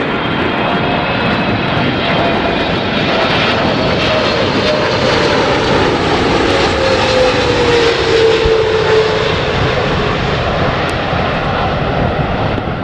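Boeing 777-300ER's twin GE90 turbofans on final approach, passing low overhead: a loud, steady jet rumble with a whining tone that slowly falls in pitch as the airliner goes by, loudest around two-thirds of the way through.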